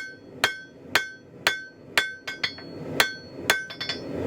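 Hand hammer striking a 3/8-inch square mild steel bar on an anvil, about two blows a second with a few lighter taps between them, each blow followed by a short metallic ring. The blacksmith is drawing out a light taper on the bar's end.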